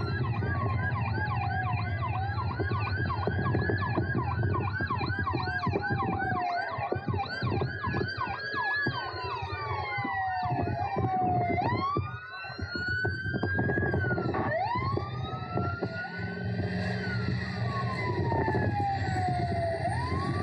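Several vehicle sirens sounding at once: one in a fast yelp for the first few seconds, others in slow rising and falling wails that overlap, over a steady low rumble of vehicles in a convoy.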